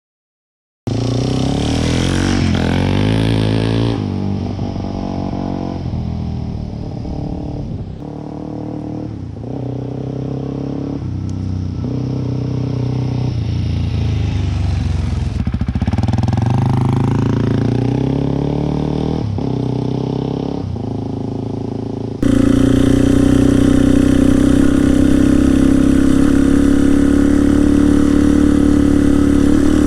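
Suzuki DR-Z400E single-cylinder four-stroke dirt bike engine heard through its exhaust, revved up and down repeatedly. About 22 seconds in there is a sudden cut to a louder, steadier run. This is a comparison of the standard baffle-less pipe and a Lexx slip-on muffler with its quiet-core insert.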